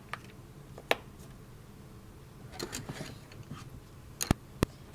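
A small whiteboard being handled on a table: one sharp tap about a second in, faint scratchy rubbing in the middle, and two quick sharp clicks near the end.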